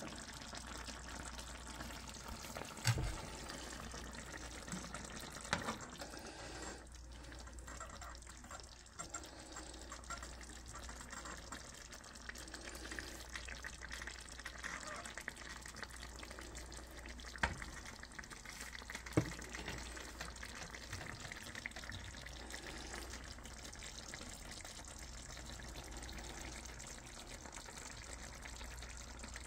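A pan of tomato-broth pasta soup simmering quietly, a steady soft bubbling hiss, with a few sharp knocks of a serving spoon against the pan.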